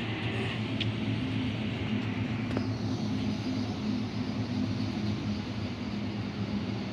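Sydney Trains Oscar (H set) electric multiple unit moving slowly past the platform, with a steady low hum and rumble. A hiss stops about half a second in.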